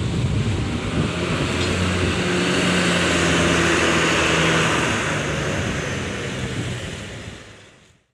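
Coach bus diesel engine pulling away and driving close past: a steady low drone with a rushing noise that swells as the bus goes by about three to four seconds in, then fades out near the end.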